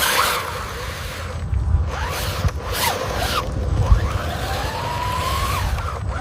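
Small electric motors of RC model trucks whining and changing speed, their pitch rising and falling, with several short rasping bursts over a low hum.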